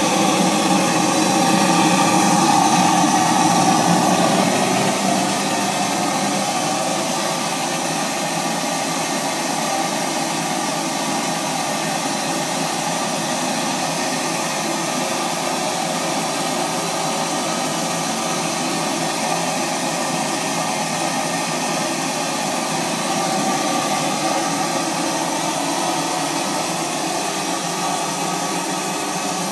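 D-10 model steam engine running under steam with a steady hiss, a little louder for the first few seconds.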